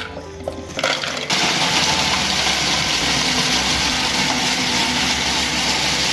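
Oreo biscuits clattering into a food processor bowl, then just over a second in the food processor starts and runs loudly and steadily, chopping the biscuits into crumbs.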